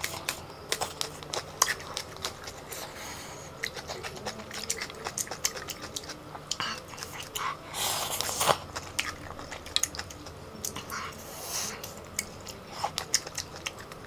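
Close-up mouth sounds of eating spicy instant noodles: a steady run of wet chewing and biting clicks. A noodle slurp comes about eight seconds in, and another a few seconds later.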